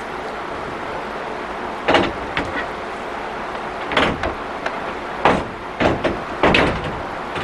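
Five sharp metal clanks with short rattles, spread over a few seconds, from the heavy steel tray of a pickup bed slide being worked and slid. They sit over a steady background hiss.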